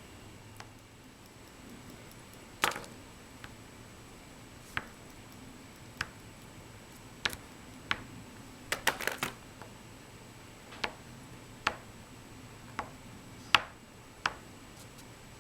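About a dozen sharp taps and clicks at irregular intervals, some in a quick cluster around the middle, over a faint steady background hum.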